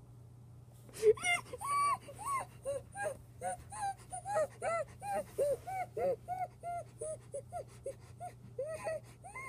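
A voice whimpering in a long run of short, high rising-and-falling cries, about two a second, starting about a second in: a reaction to an extremely sour Warheads candy.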